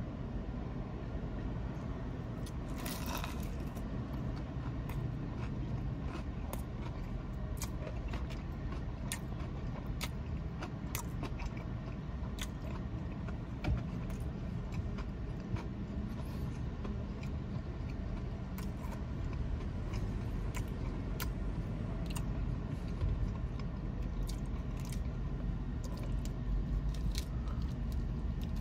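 A person chewing crispy breaded Nashville hot chicken tenders close to the microphone: scattered sharp crunching clicks and wet mouth sounds over a steady low rumble inside a car.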